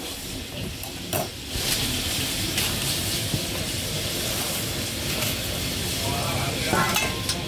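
Cut prawn fritters and loh bak tipped from a stainless steel bowl into a thin plastic bag: plastic rustling and food and metal scraping, with a sharp click about a second in, over a steady sizzling hiss.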